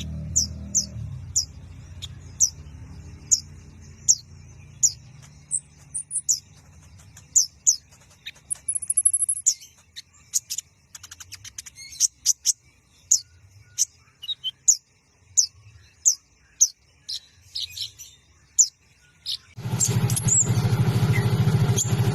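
Sunbird calling: sharp high chirps repeated about once or twice a second, with a short buzzy high trill and a quick run of clicking notes around the middle. About two and a half seconds before the end a loud, steady low noise starts and covers the calls.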